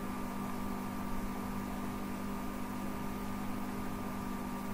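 Steady background hum with a faint higher whine and an even hiss, unchanging throughout, with no distinct event.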